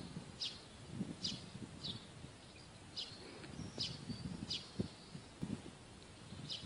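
Faint, short bird chirps, about one a second, over soft low rustling.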